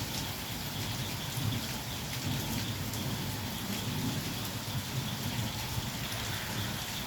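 Heavy rain pouring steadily, with a low rumble of thunder underneath.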